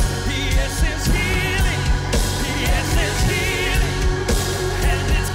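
Church worship music: a band plays a steady beat under sustained chords while a voice sings long, wavering notes.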